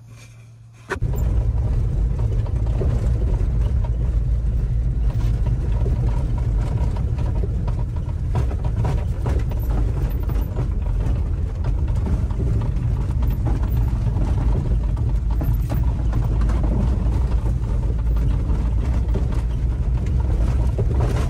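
Mini truck driving on a gravel lane, heard from inside the cab: the engine running under a loud, steady low rumble of road noise, with the cab rattling over the bumps. It starts suddenly about a second in.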